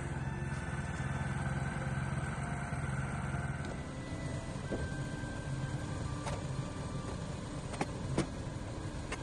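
An engine idling steadily with a low, even hum, with a couple of sharp clicks or knocks near the end.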